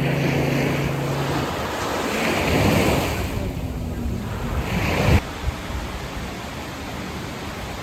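Sea surf washing on a beach, with wind on the microphone. A steady low hum runs through the first second and a half, and the sound drops suddenly about five seconds in.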